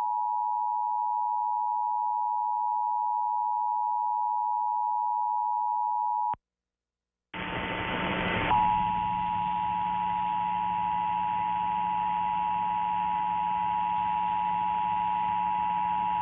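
Emergency Alert System attention signal: a steady two-tone beep held for about six seconds, then cut off by a second of silence. Hiss with a low hum then comes in, and about a second later the same two-tone alert sounds again over it.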